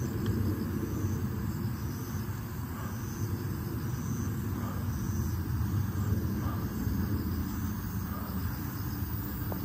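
Night insects calling in a short high chirp about once a second over a steady low rumble outdoors.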